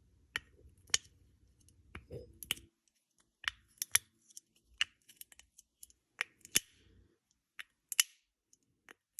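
Homemade Simple Dimple fidget toy, made from plastic water-bottle pieces, clicking as its dimples are pressed down with a finger: a string of sharp, irregular plastic clicks, a few a second.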